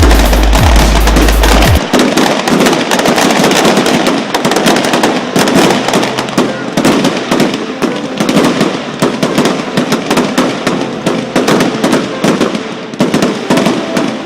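Fireworks going off in a dense, rapid crackle of bangs. A heavy low rumble underneath cuts off suddenly about two seconds in.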